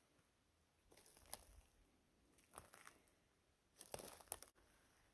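Faint crunching rustles of dry forest-floor litter being disturbed, three short bouts about a second and a half apart.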